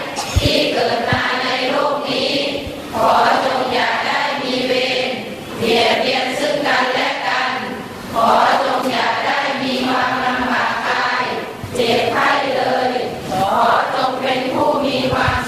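A group of people chanting together in unison, Buddhist-style recitation in phrases a couple of seconds long with short pauses between them.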